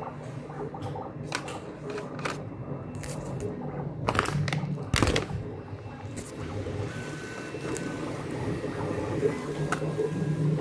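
3D printers running: stepper motors humming and whirring, with a few sharp clicks, the loudest about five seconds in, and a brief thin whine about seven seconds in.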